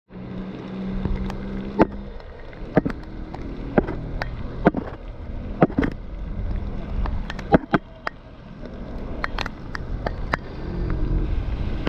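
Rushing wind and rain noise on a bicycle-mounted camera riding through heavy rain on a wet road, with scattered sharp ticks about once a second.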